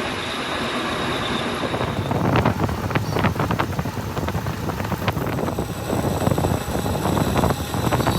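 Workshop machinery running with a steady hiss and a faint high whine, then irregular knocking and clattering from about two seconds in.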